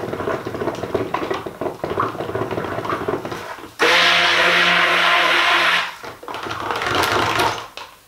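Electric stick blender running in a bucket of cold process soap batter, mixing in fragrance oil. It runs with a steady whir and light knocks against the bucket, gets louder and harsher for about two seconds in the middle, then drops back and stops just before the end.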